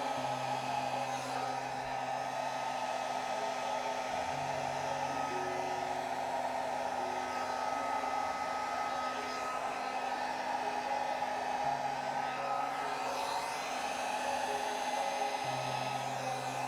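Handheld hair dryer running steadily, blowing air across wet acrylic pouring paint to spread the cell activator.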